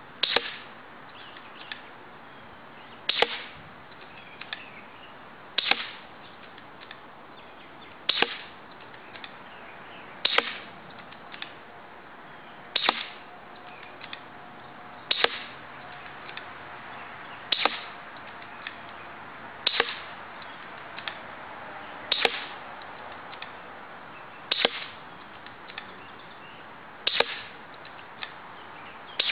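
Airsoft BBs from a spring-powered VSR-10 sniper rifle striking a cardboard box target, about a dozen sharp hits roughly every two and a half seconds in steady rapid fire, most punching straight through the cardboard.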